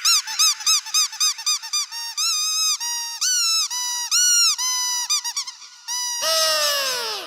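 Squeaky dog toy squeezed again and again: a quick run of short squeaks, then longer held squeaks. Near the end comes a louder squeal that slides down in pitch.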